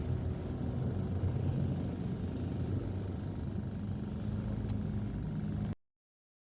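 Steady low rumble of a moving vehicle, which cuts off abruptly near the end.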